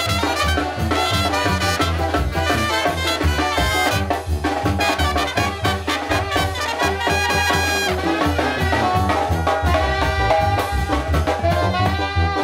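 Zacatecan-style tamborazo band playing an instrumental break in a song: trumpets and trombones carry the melody over the steady beat of the tambora bass drum.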